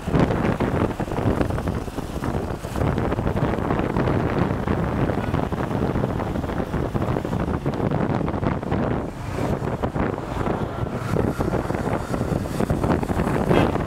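Steady wind buffeting the microphone of a camera riding on a moving bike, with road noise underneath.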